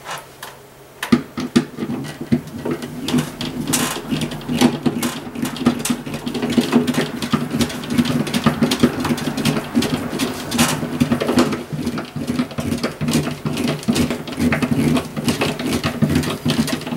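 Hand screwdriver turning a screw through a plastic alarm-speaker plate into the wall: rapid clicking and scraping strokes, starting about a second in and continuing without a break.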